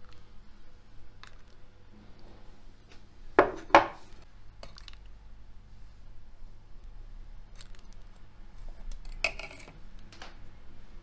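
Terracotta bowls, a steel ladle and pot knocking and clinking as filled bowls of rice pudding are handled on a stone counter: two sharp knocks close together a little over three seconds in, and another knock with a short ring a little after nine seconds, with a few faint clicks between.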